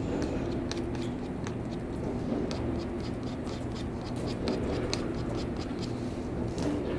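A small metal scraper scratching at the paint on a canvas in quick, irregular short strokes, over a steady low hum.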